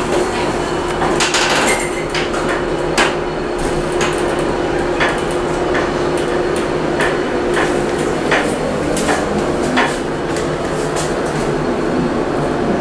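Elevator car travelling in its shaft: a steady mechanical hum with a held tone, broken by irregular sharp knocks about every half second.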